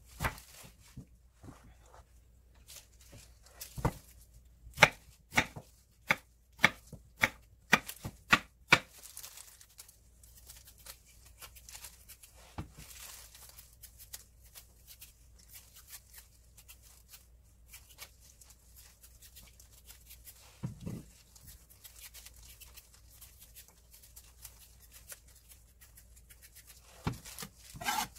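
Chef's knife chopping carrot and white radish on a wooden cutting board: a run of sharp knocks of the blade on the board, about two a second, from about four to nine seconds in, then only occasional quieter cuts.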